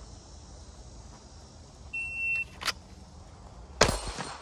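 Electronic shot timer beeps once, about two seconds in, as the start signal for a pistol drill. Handgun shots follow, a sharper crack soon after the beep and a loud shot with echo near the end.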